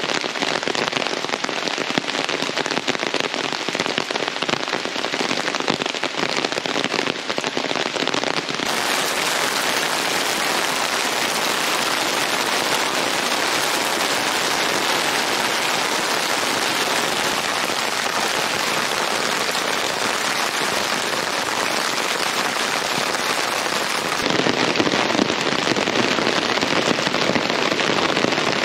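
Heavy rain falling steadily on a tarp overhead and on muddy ground, a dense even hiss with no thunder. The hiss turns brighter about nine seconds in and back again near the end.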